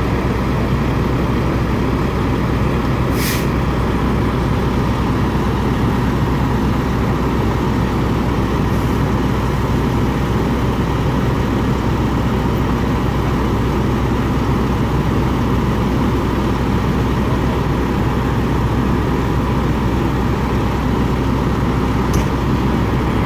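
Fire engine's diesel engine running steadily at close range, a loud, even low rumble. A short hiss of air comes about three seconds in.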